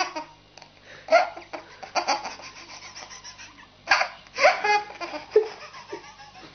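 A baby laughing hard in bursts of giggles and belly laughs, the loudest about a second in, at two seconds, and a run of laughs between four and five and a half seconds in.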